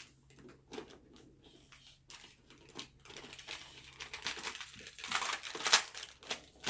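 Packaging rustling and crinkling as something is lifted out of a box by hand, with a few light knocks at first and the rustling growing busier and louder from about halfway through.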